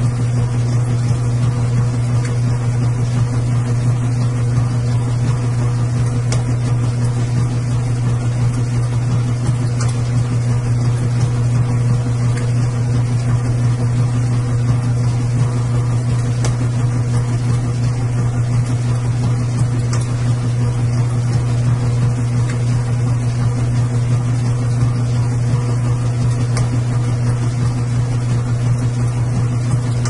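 Washing machine running: a loud, steady low hum with a few fainter, higher steady tones above it, even and unbroken.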